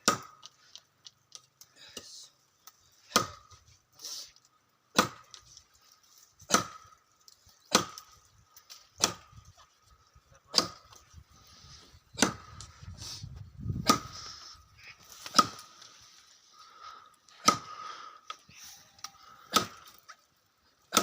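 Axe chopping wood: single sharp blows, about one every one and a half seconds.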